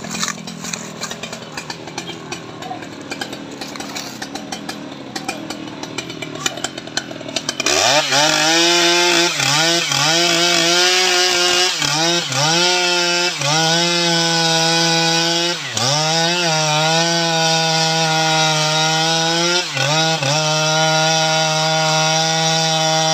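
Stihl MS 881 two-stroke chainsaw running low and unevenly for about seven seconds, then opened up to full throttle and held there while it cuts into a teak log. The engine note drops briefly several times as the chain loads in the wood and recovers.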